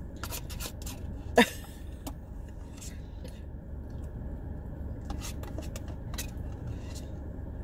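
Steady low hum of a car's running engine and air conditioning heard from inside the cabin, with scattered small clicks and handling noises and one sharp click about one and a half seconds in.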